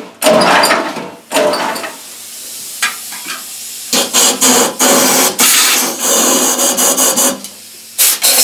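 Small engine being turned over by hand with rasping, repeated pulls, a few early on and a quick run of them in the second half. The engine has just been filled with hydraulic oil after taking in water and is being worked loose before a start attempt.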